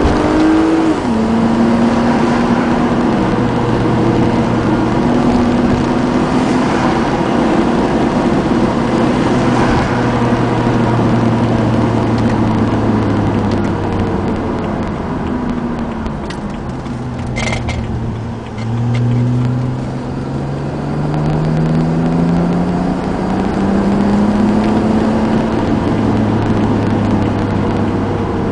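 Engine and exhaust of a BMW E90 328i's inline-six, running with gutted primary catalytic converters and a Rogue Ikon exhaust, heard from inside the cabin while driving. The engine note climbs and drops right at the start, holds steady at cruise, then falls away about two-thirds of the way through before rising steadily as the car accelerates.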